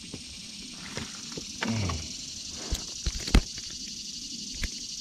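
A few sharp knocks and thumps in a small metal boat as a hooked bluegill is swung aboard and handled; the loudest knock comes about three and a half seconds in.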